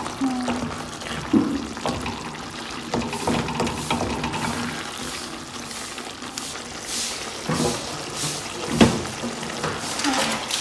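A spoon stirring and mashing thick, wet potato-and-aubergine curry in a steel pot, with irregular knocks and scrapes of the spoon against the pot.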